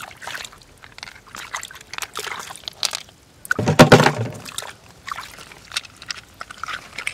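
Hands squelching and sloshing through wet mud and shallow water among roots, with many small irregular crackles and one louder slosh a little past halfway.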